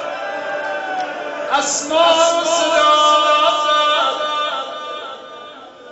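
A man's voice chanting a mourning elegy in long, ornamented held notes. It grows louder about two seconds in and fades away near the end.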